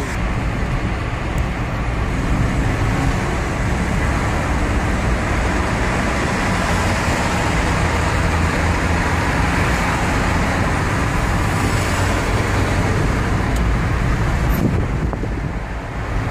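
Steady road noise heard from inside a moving car: tyre and engine rumble with surrounding traffic, which grows fuller while driving through a road tunnel and eases near the end.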